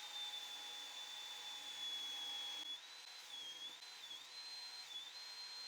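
Table saw running faintly with a high steady whine, ripping boards to width. The whine's pitch dips briefly three times in the second half as the blade takes the load of the cut.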